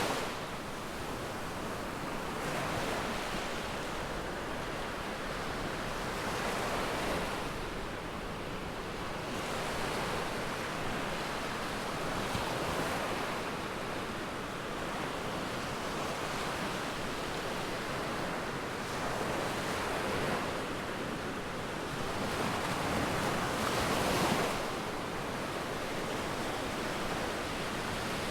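Sea waves breaking and washing up the beach, a steady surf noise that swells every few seconds and is loudest shortly before the end.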